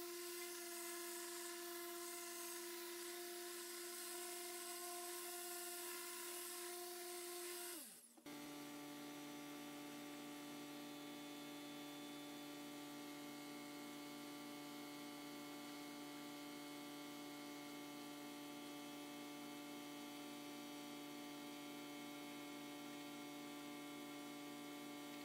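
Electric car polisher with a foam pad running at a steady speed, buffing a painted panel, for about the first eight seconds. Then it cuts off and a steady hum takes over.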